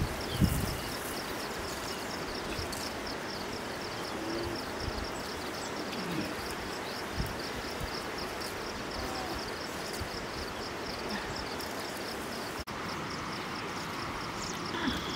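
Insect chirping in a fast, even, high-pitched pulse that keeps going without a break, over a steady outdoor hiss.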